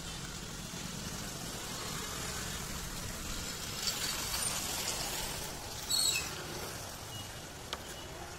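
Roadside traffic noise with a motorcycle passing a few seconds in, followed by a few short sharp clicks.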